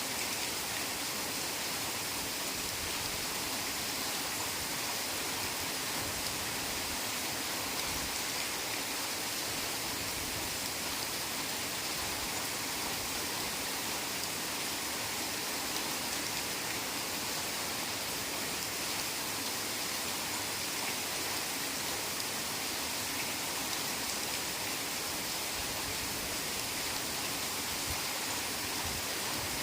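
Heavy rain falling steadily on forest foliage, a dense, even hiss with no distinct drops standing out.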